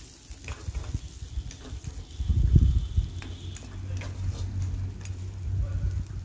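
Steel ladle stirring shallots and garlic frying in oil in a kadai, with scattered clicks of metal scraping and tapping the pan over a faint sizzle. A dull bump about two and a half seconds in.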